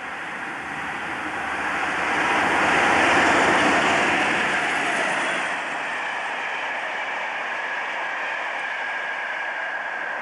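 British Rail diesel locomotive passing at speed at the head of a passenger train: its engine and wheel noise build up, are loudest about three seconds in as it goes by, and then give way to a steady rush of coach wheels on the rails.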